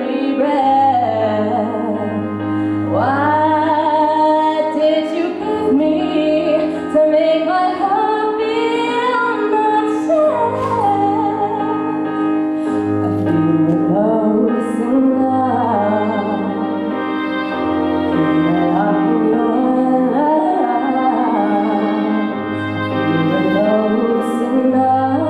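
A woman singing a slow melody with held, wavering notes over instrumental accompaniment with sustained chords and long low bass notes.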